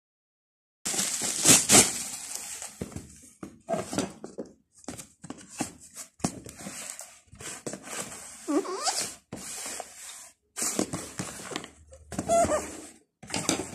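Cardboard product box being handled and turned over: rustling, scraping and knocks in irregular bursts, beginning about a second in, with a brief falling squeak a little past the middle.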